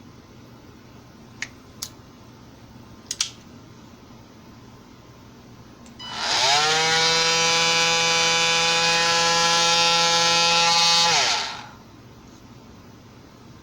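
Cordless oscillating multi-tool started up, rising quickly to speed, running at a steady pitch for about five seconds, then winding down as it is switched off. A few light clicks come before it starts.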